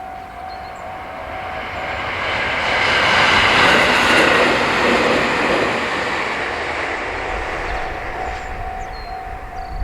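A JR Hokkaido train passing over a level crossing, its rushing rail noise building to a peak about four seconds in and then easing off. The crossing's warning bell rings in a repeating pattern, heard clearly at the start and again from about seven and a half seconds in.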